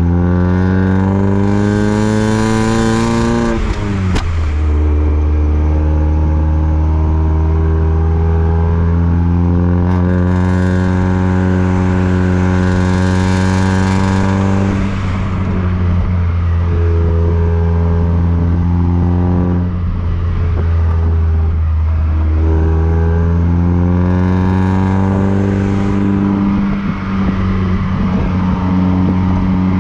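Exhaust of a decat Mazda MX-5 NB's four-cylinder engine (catalytic converter removed), heard at the tailpipe while driving. The revs climb, drop sharply about four seconds in, then climb slowly for about ten seconds. They fall and waver through the middle, and climb again before dropping near the end.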